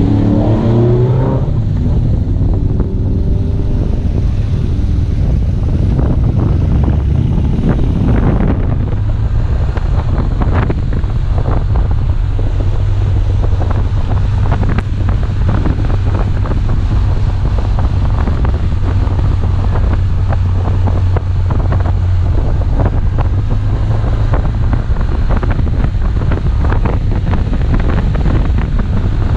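BMW R1200GS boxer-twin engine running steadily on the move, heavily buffeted by wind on the camera's microphone. In the first second or so another motorcycle passes the other way, its engine note sliding in pitch.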